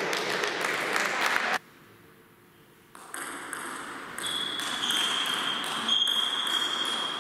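Table tennis ball clicking off bats and table in a rally, in a large hall. The sound drops to near silence for about a second and a half shortly after the start.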